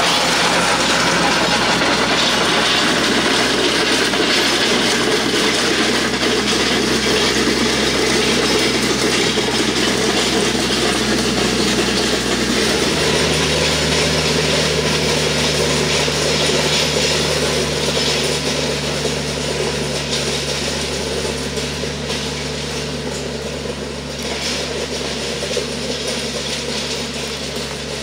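A TYM compact diesel tractor's engine runs steadily while the Titan land plane it pulls scrapes and rattles over loose gravel and dirt. The engine note shifts about halfway through, and the whole sound grows a little fainter toward the end.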